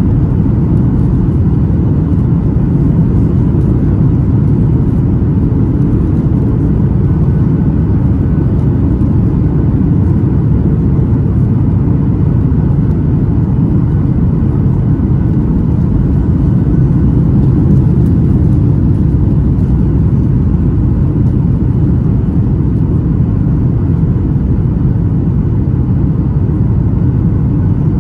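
Steady, loud low rumble inside the cabin of a Boeing 737-800 on approach with its flaps extended: engine and airflow noise from the CFM56-7B turbofans and airframe, heard from a window seat over the wing.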